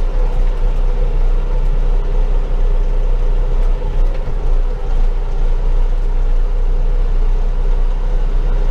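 Bobcat compact tractor's diesel engine running steadily under light load as the tractor is driven through a tight turn in four-wheel drive.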